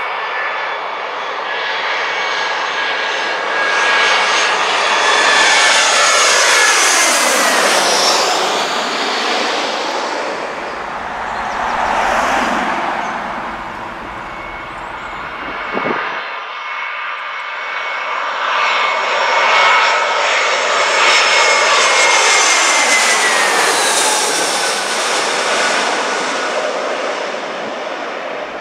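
Two jet airliners on landing approach passing low overhead one after the other, each a swelling jet-engine noise whose whine slides down in pitch as the aircraft goes by; the first is an easyJet Airbus A319. There is an abrupt cut between the two passes.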